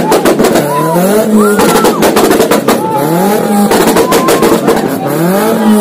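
Modified car engine revved in repeated blips, its pitch rising with each one, with a rapid string of sharp pops and cracks from the exhaust.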